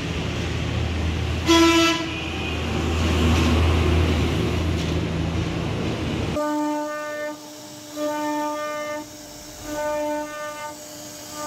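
A steady low rumble with one short, loud horn blast about one and a half seconds in. About six seconds in this cuts off abruptly and background music of long held notes in repeating phrases takes over.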